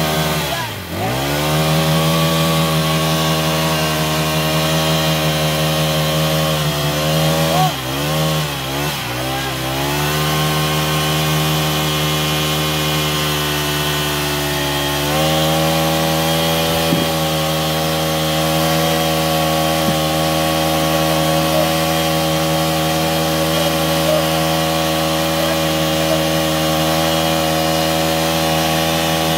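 Engine of a borehole drilling rig running steadily. Its speed drops sharply and recovers about a second in, wavers up and down between about seven and ten seconds in, then settles at a slightly higher, even pitch from about fifteen seconds.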